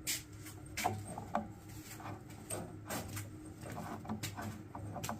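Irregular light clicks and taps of tools and pipe fittings being handled while a water heater's water and gas lines are reconnected.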